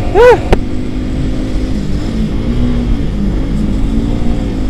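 Sport motorcycle engine with an aftermarket racing exhaust running at steady cruising revs while riding, its pitch wavering only slightly, over a low rumble. A short rising-then-falling tone and a click come about a quarter second in.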